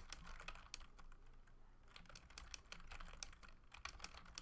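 Faint typing on a computer keyboard: a quick, irregular run of key clicks with a short pause about a second and a half in.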